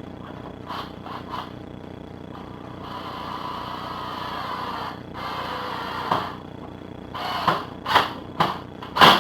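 A drill driving a screw into the wine rack, running in two spells in the middle with a brief stop between. A series of sharp clicks and knocks follows, the last and loudest near the end; the bit fits poorly. A steady low hum sits underneath throughout.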